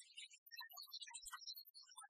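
Faint music, sparse short notes at a very low level, close to silence.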